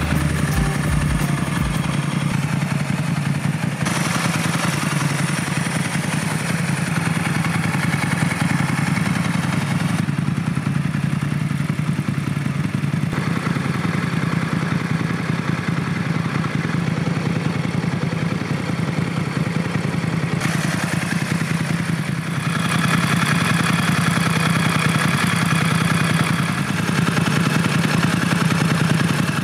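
Moto Guzzi Norge 1200 GT 8V's 1151 cc transverse 90-degree V-twin running steadily at idle, with a mechanical clatter over the low engine note. The upper part of the sound changes abruptly a few times while the engine speed stays the same.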